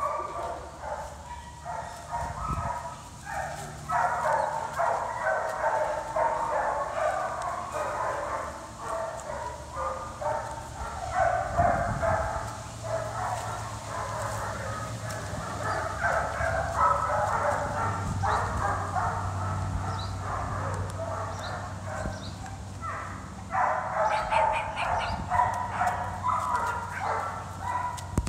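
Many dogs barking at once, overlapping almost without pause. The barking eases briefly about three-quarters of the way through, then picks up again.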